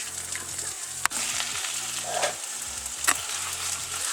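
Mince sizzling in a frying pan with onions and garlic as a spoon stirs it, with a sharp clack about a second in and another about three seconds in.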